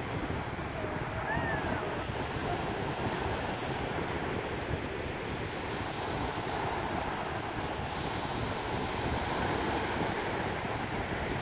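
Wind blowing on the microphone, steady, over the wash of small waves on choppy open water.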